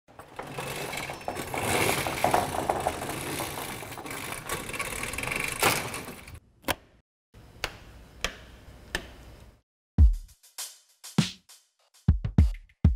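A roll-up shop door being raised by its hand-chain hoist: the chain and the door slats rattle steadily for about six seconds, then stop. About ten seconds in, music with heavy electronic drum hits begins.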